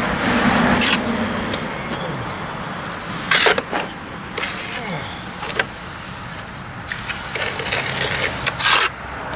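A hand float rubbing and scraping over fresh cement plaster on a block foundation, flattening it out, with a few short sharp knocks.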